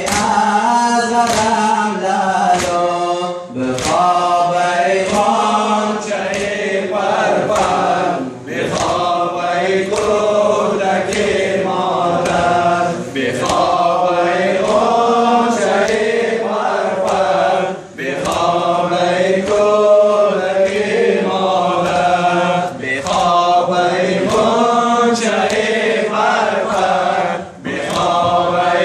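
A group of men chanting a Persian-language noha (Muharram mourning lament) together in a repeating melody, over a steady beat of hands slapping chests (sina zani).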